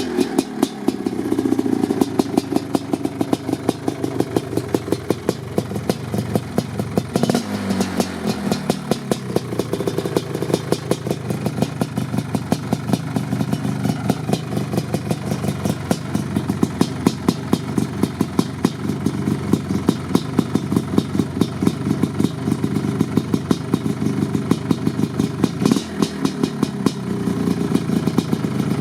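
Suzuki LT500R Quadzilla's 500 cc liquid-cooled single-cylinder two-stroke engine idling with an uneven, lumpy beat during warm-up, given two short throttle blips, about seven seconds in and near the end, that fall back to idle.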